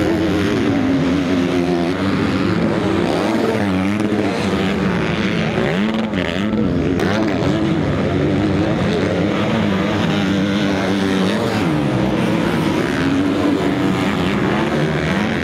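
Several motocross bike engines revving together, their pitch rising and falling over and over as the riders open and close the throttle and shift through the turns.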